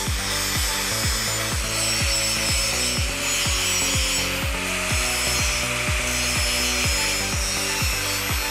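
Angle grinder grinding down the edge of a steel tube to prepare it for welding: a steady whine with the hiss of the disc on metal, wavering slightly as it is worked along the edge. A steady, fast music beat with bass runs underneath.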